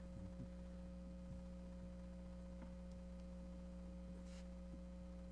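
Steady low electrical mains hum from the sound system, made of a few constant pure tones, with a faint brief rustle about four seconds in.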